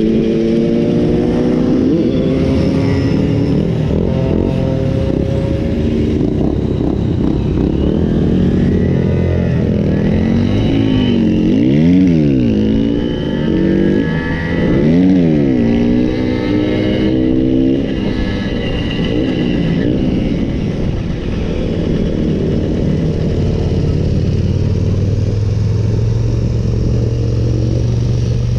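Simson moped single-cylinder two-stroke engines running on the move, their pitch climbing and falling as they rev and shift. Twice around the middle the revs shoot up and drop straight back down; near the end they settle into a steadier low drone.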